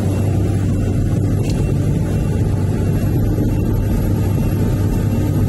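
Excavator's diesel engine running steadily, heard from inside the cab.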